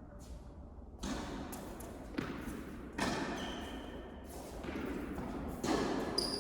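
Tennis ball being hit by rackets and bouncing on the court during a rally: four or five sharp pops about a second apart, each echoing in a large indoor hall.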